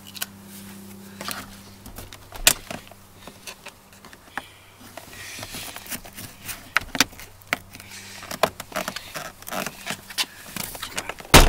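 Hard plastic door trim on a Nissan Frontier being pried up with a small flathead screwdriver: scattered sharp clicks and scrapes as the armrest switch panel is worked loose. It ends in a burst of loud snaps and knocks as the panel comes up.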